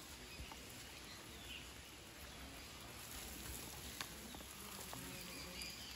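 Faint outdoor ambience of light rain: an even soft patter with a few sharp drip-like ticks, and faint bird chirps about halfway through.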